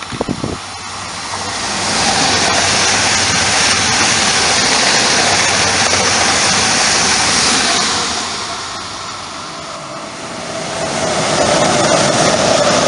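A passenger multiple-unit train passing close by at speed: a steady rush of wheel and running noise that builds over about two seconds and fades after about eight. Then a second train, a locomotive hauling Intercity coaches, comes through and its rush rises again near the end.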